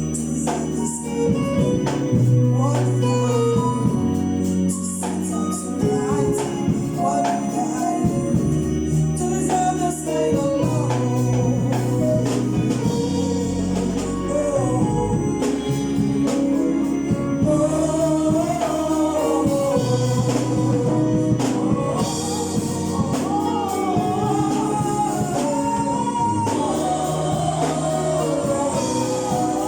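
Gospel choir singing with instrumental accompaniment: a steady bass line under a bending sung melody.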